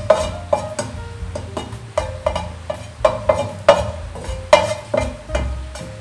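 Wooden spatula stirring in a nonstick pot of hot olive oil, knocking and scraping against the pot's sides and bottom in irregular clacks, about two to three a second, each with a short ring from the pot.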